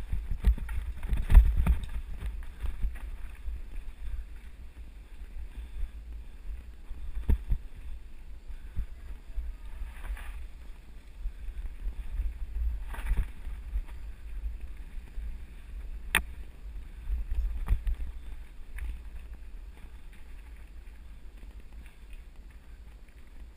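Mountain bike riding fast down a dirt trail: a steady low rumble of wind on the camera microphone and tyres on dirt, with irregular knocks and rattles of the bike over bumps and one sharp click about two-thirds of the way through.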